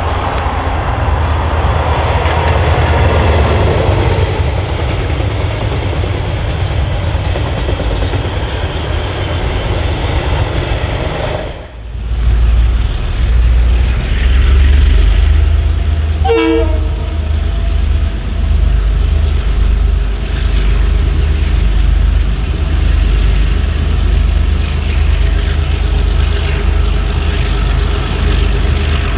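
Diesel-electric freight locomotives working hard under load with the train rolling by. After a cut about a third of the way in, a locomotive approaches with a heavy, low engine throb and gives a brief horn toot a few seconds later.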